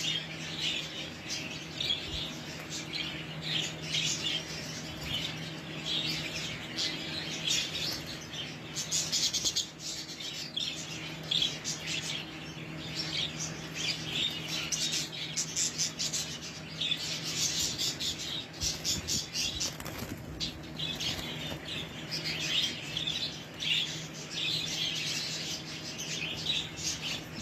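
A flock of caged budgerigars chattering with constant rapid chirps and warbles, wings flapping as birds flutter about the cage. A steady low hum runs underneath.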